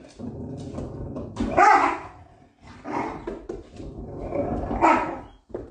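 A dog growling and grumbling in three rough bouts, loudest a little under two seconds in and again near the end.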